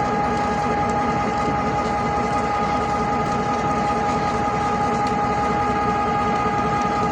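Train running with a steady low rumble and a constant high-pitched whine held over it.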